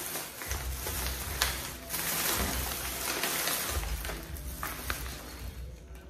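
Plastic snack bag crinkling and rustling as it is handled, a dense crackle with a few sharper crackles.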